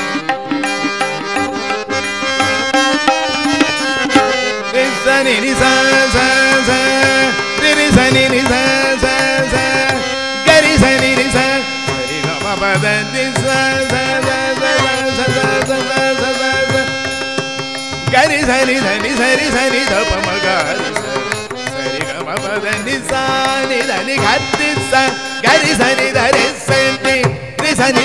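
Carnatic-style devotional music: harmonium sustaining the melody over a steady accompaniment of tabla and mridangam strokes.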